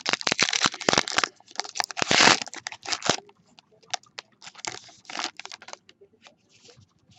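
Baseball card pack wrapper crinkling and tearing open, with cards being handled. The first three seconds are a dense run of loud crinkles and snaps, loudest a little past two seconds in, then softer scattered crinkles and clicks.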